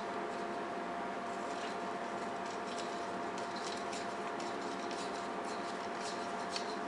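Steady hum with one constant tone, over which come faint, scattered light clicks of small parts being handled.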